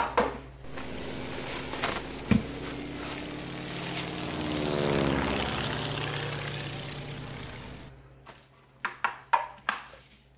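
A passing engine, most likely a vehicle or aircraft going by outside, swells to a peak about five seconds in with its pitch dropping, then fades away. Over it come a few knocks and crinkles as plastic wrap is peeled off a thin foil pan, and near the end a run of sharp clicks as the pan is flexed.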